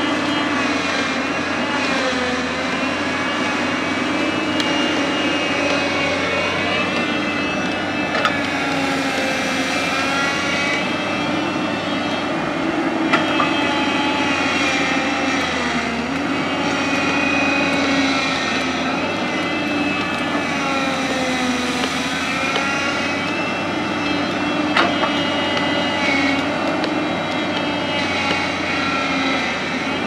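JCB tracked excavator's diesel engine running steadily while it digs and swings, its pitch rising and falling as the engine takes and sheds load, with a few sharp knocks along the way.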